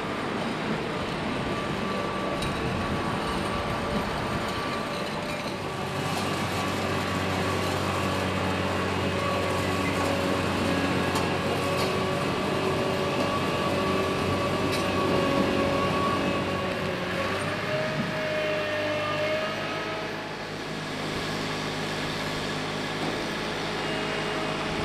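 Bergmann Roll-Packer RPM 7700 mobile waste compactor running, its engine and hydraulics giving a steady whine with several tones as the arm works the spiked compaction roller. A few faint clicks sound along the way, and the whine shifts in pitch and briefly drops in level about 18 to 20 seconds in.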